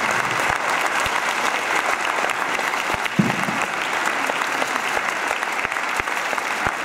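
Large audience applauding steadily, many hands clapping together in a dense, even patter.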